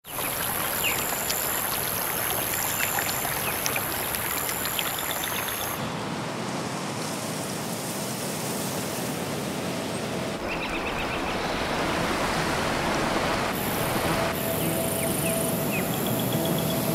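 Outdoor nature ambience: a steady rushing noise with a high, even whine and scattered short chirps, the mix changing abruptly about six and ten seconds in.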